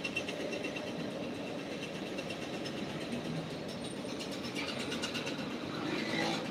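A steady low rumble of urban background noise, of the traffic or machinery kind. It swells briefly near the end.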